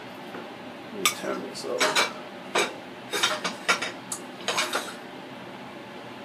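Metal tongs and a knife clinking and scraping against a ceramic plate while cutting into a cooked chicken wing. A run of short clicks and scrapes starts about a second in and stops about five seconds in.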